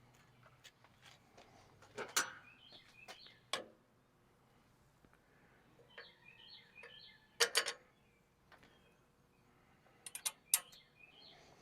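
A bird chirping short repeated phrases, with sharp clicks and knocks breaking in: one about two seconds in, a cluster about seven and a half seconds in, and a quick run of several near the end, which are the loudest sounds.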